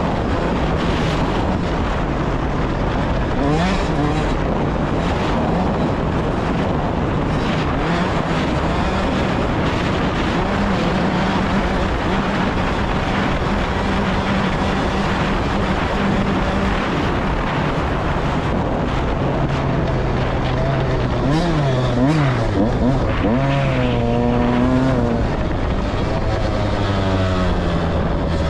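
Off-road vehicle engine running steadily on a sand-riding trail. About three quarters of the way in, its pitch rises and falls a few times as the throttle changes.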